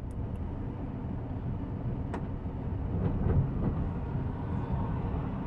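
Commuter train running along the track, heard from inside the rear cab car: a steady low rumble with a few sharp clicks near the middle.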